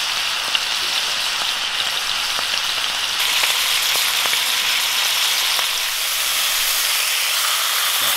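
Homemade burgers frying in a pan: a steady sizzle with a few small pops.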